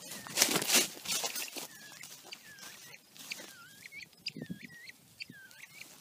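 Rustling through brush and ground cover in the first second or so, then a northern bobwhite quail giving a run of short whistled chirps, several a second, each note dipping and rising in pitch.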